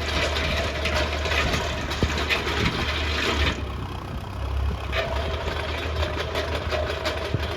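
Engine of a hole-drilling machine running steadily: a low drone with a noisy rushing hiss over it. The hiss drops away for about a second and a half midway, then comes back.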